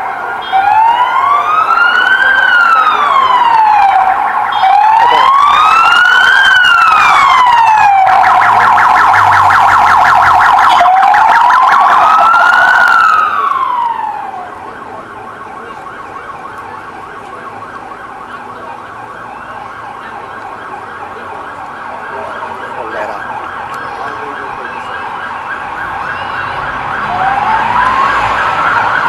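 Police sirens of a motorcade escort on an alarm run. Slow wails rise and fall about every four seconds, switching briefly to a rapid yelp. About halfway through the level drops to a fainter fast yelp, then grows loud again with a new rising wail near the end as the police motorcycles draw near.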